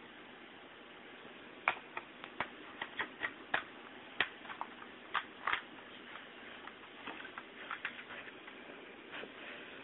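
Irregular light clicks and taps of hard plastic: the Lego pistol model being handled, its bricks knocking and clicking. They start a couple of seconds in and come several a second, unevenly spaced.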